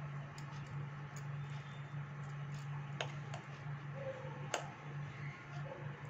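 Light, scattered clinks and ticks of a stack of bangles knocking together and against the metal bread tin as a hand presses seeds into the dough, with two sharper clicks about three and four and a half seconds in. A steady low hum runs underneath.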